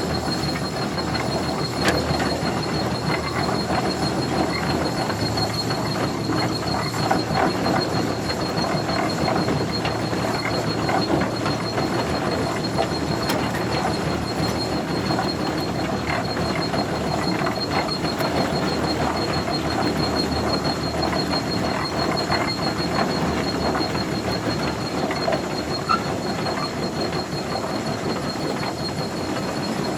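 Tractor engine running steadily, with a rattling, clattering mechanical noise and a thin high whine throughout.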